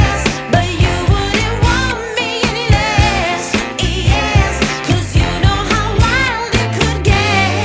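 Background music: a song with a singer's voice wavering in vibrato over a steady drum beat of about two hits a second and a bass line.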